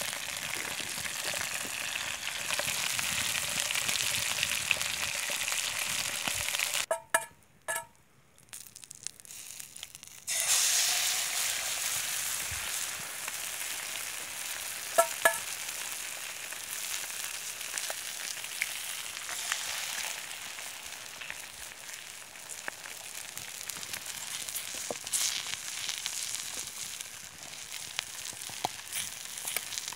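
Silkworm pupae and eggs sizzling in vegetable oil in a frying pan, a steady hiss. It cuts out briefly about a quarter of the way in, then comes back louder and slowly settles.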